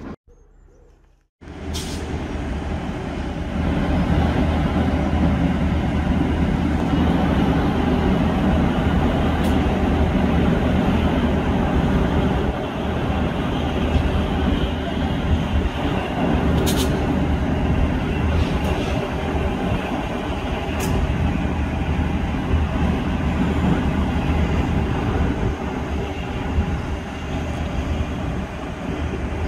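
Steam locomotive No. 131, a GNR(I) Q class 4-4-0, standing at a station platform. It gives a steady rumbling hiss with a low hum that starts after a brief dropout and never breaks into a beat. A few faint sharp clicks come through in the second half.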